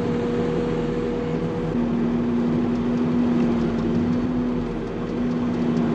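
A farm machine's engine running steadily, with a constant droning tone.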